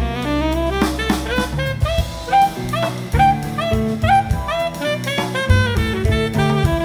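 Jazz quartet playing, with tenor saxophone, guitar, acoustic bass and drum kit. A quick run of melodic notes moves over bass notes and steady drumming.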